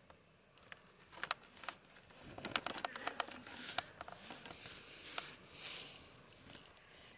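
Close rustling and scattered small clicks from a lying deer fawn grooming its fur and shifting among leafy plants, busiest from about two to six seconds in.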